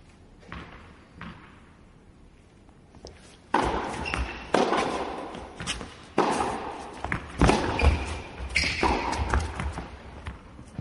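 A run of sharp knocks, roughly one a second, starting about three and a half seconds in after a quiet start, each ringing on briefly as if in a large hall.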